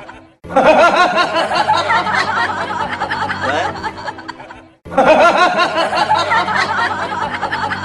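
A comedic laughing sound effect, several voices snickering and chuckling over steady background music. The clip plays twice in a row, each time after a short gap.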